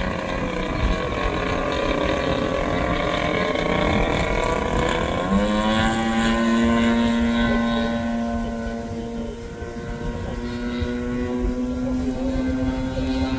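Radio-controlled model airplane's piston engine running in flight. It throttles up sharply about five seconds in and then holds a steady, higher pitch.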